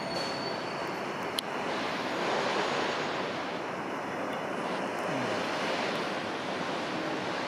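Steady city-street traffic noise: a broad, even hiss of tyres and engines from cars and a bus on the road, swelling slightly a couple of seconds in.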